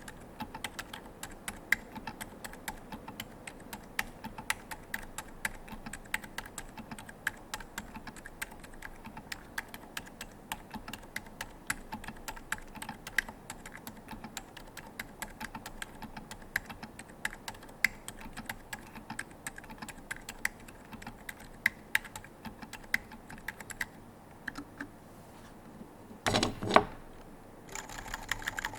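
Typing on a KFE CE mechanical keyboard with franken Holy Bobas switches (Outemu Milk stems in CIY housings, 68 g springs), a brass plate and DCS keycaps: a fast stream of key clacks that thins out after about 24 seconds. A louder noise lasting under a second comes about 26 seconds in, then a steady hum near the end.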